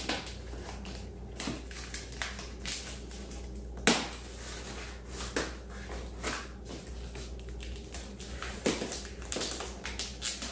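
Packing tape on a cardboard shipping box being cut and pulled open along its seams: irregular crackling and scraping of tape and cardboard, with a sharper crack about four seconds in.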